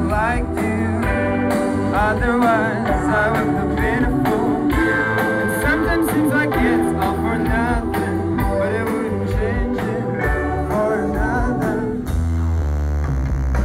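A rock song with a singing voice over guitar, bass and drums. Near the end the vocal drops out and a heavier, bass-driven instrumental passage begins.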